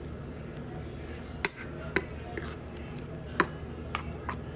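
Kitchenware knocking and clinking: about five sharp separate clicks, the loudest about a second and a half in and near the end, over a steady low background hum.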